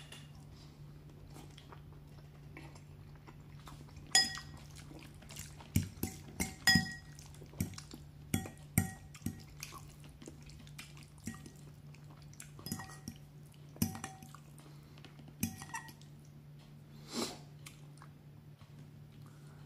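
Stainless fork clinking and scraping against a ceramic bowl as it twirls spaghetti in tomato sauce: a string of sharp, briefly ringing clinks, most of them between about four and sixteen seconds in.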